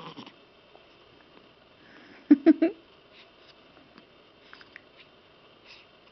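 A baby hiccuping: one loud, abrupt voiced 'hic' with a quick second catch, about two and a half seconds in. Otherwise only faint small clicks and rustles.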